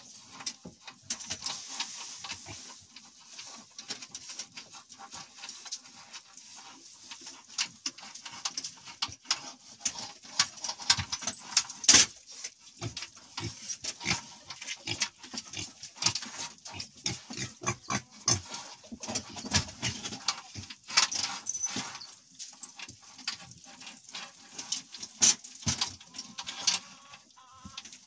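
Several cats eating together from a metal bowl: a dense, irregular run of short wet chewing and smacking clicks, with one louder click about twelve seconds in.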